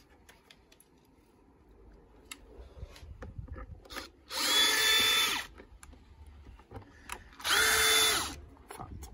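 Cordless drill-driver spinning twice, about a second each time, about four seconds in and again near the end, unscrewing the screws that hold the plastic air filter housing. There are a few light clicks of handling between the two runs.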